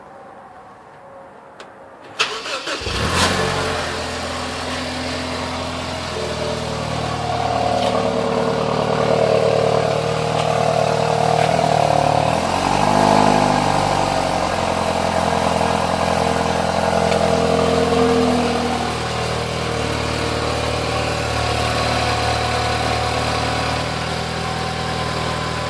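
BMW X1 engine cranking and firing up from cold about two seconds in, then idling. A strange whining tone rides over the idle, growing from about seven seconds in, strongest midway, and fading out before the end: the weird cold-start noise.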